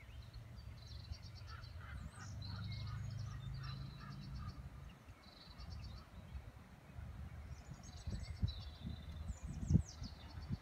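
Common ravens calling as they mob an eagle-owl: short bursts of rapid rattling notes, repeated every second or two. A low rumble runs under the first half, and a few low knocks come near the end.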